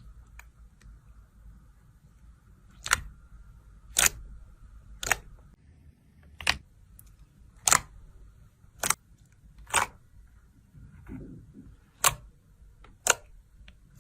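Slime being pressed and worked by hand, giving about ten sharp popping clicks roughly a second apart.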